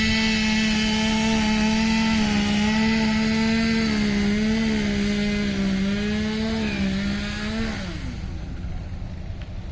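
Two-stroke chainsaw running at high revs, its pitch dipping and recovering as it cuts, then winding down near the end.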